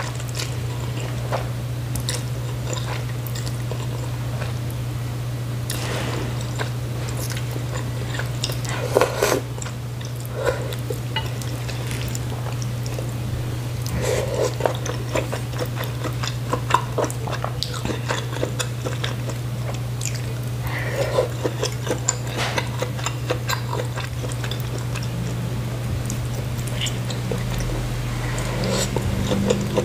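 A person eating noodle soup close to the microphone: irregular slurps, bites and wet chewing smacks, over a steady low hum.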